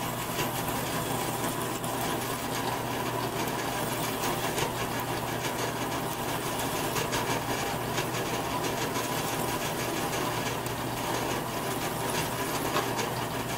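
Drill press running steadily as a twist drill cuts into 1144 Stress-Proof steel under Anchorlube cutting fluid: a constant motor hum with a steady cutting noise.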